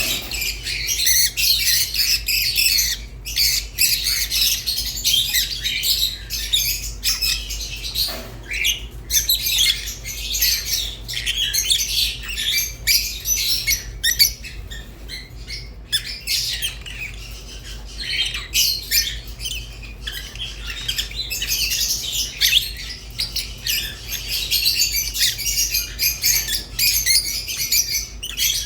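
Lovebirds, rosy-faced and Fischer's, chattering with quick high chirps and squawks, dense and near-continuous with a couple of short lulls.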